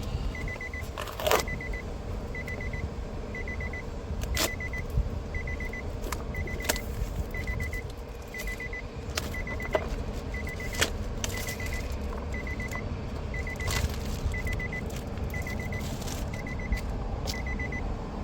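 Nissan Altima's warning chime beeping steadily about once a second, with sharp crinkles and clicks of plastic packaging being pulled off a new window switch.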